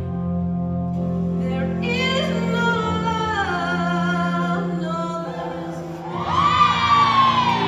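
Slow song with a singer over a steady held low accompaniment. About six seconds in the voice swells into a loud, high held note that bends downward near the end.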